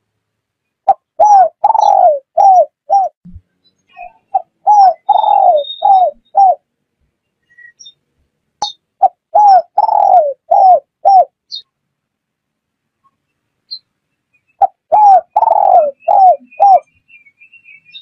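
Spotted dove cooing: four phrases of about five coos each, spaced a few seconds apart, the second coo of each phrase drawn out and falling in pitch.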